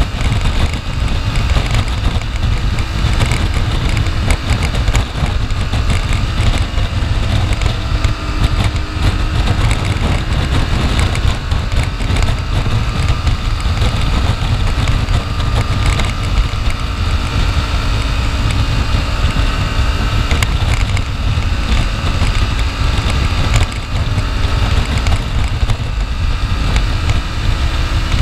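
Aprilia Tuareg 660's parallel-twin engine running steadily as the motorcycle cruises, heard from the rider's chest with heavy wind noise on the microphone.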